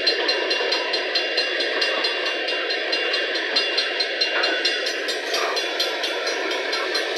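Empty coal cars of a long freight train rolling past, their wheels clicking steadily over the rail at about four or five clicks a second, with a thin high ringing from the wheels and rails.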